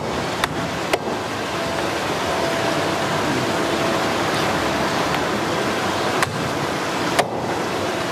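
A heavy cleaver knocking sharply against fish bone and the cutting board while a large grouper's head and collar are cut apart: three quick knocks in the first second, then two more about six and seven seconds in. Under it runs a steady rushing noise.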